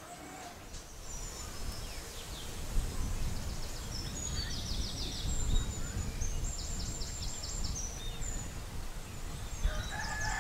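Open-air rural ambience: wind rumbling on the microphone, with small birds giving repeated high chirps and short buzzy trills over it.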